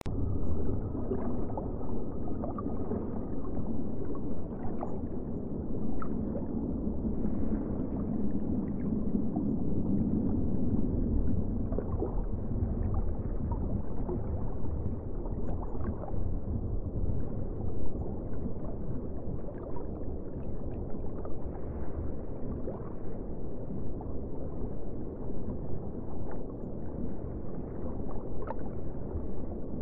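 Aquarium water and equipment noise: a steady low rumble and gurgle of circulating water, with a few faint small clicks.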